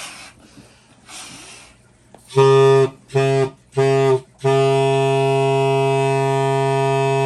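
Homemade air horn, a length of PVC pipe with a stretched balloon as the reed, sounding one low steady horn tone: three short blasts, then one long held blast from about four and a half seconds in.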